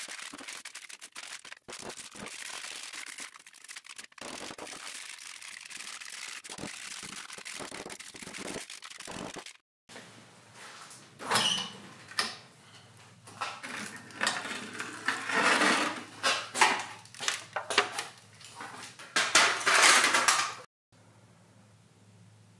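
Thin stainless steel heat-treat foil being folded and crimped around a steel knife blank, a steady crinkling rustle with fine clicks. After a short break, a run of louder metallic scrapes and knocks follows.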